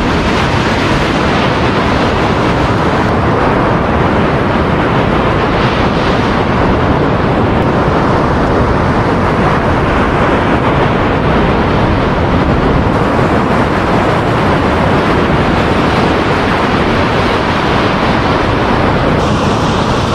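Surf washing on a beach, with wind buffeting the microphone: a steady, loud rush of noise.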